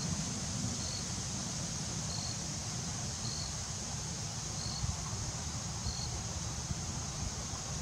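Outdoor ambience: a low wind rumble under a steady high insect drone, with a short high chirp repeating about once a second.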